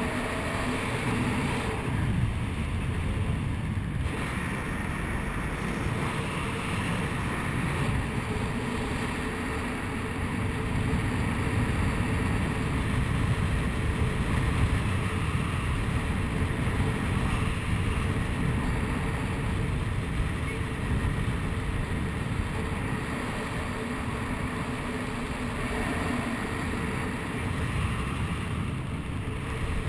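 Wind rushing over the camera's microphone as a skydiver descends under an open parachute canopy: a steady low rumble that swells slightly now and then.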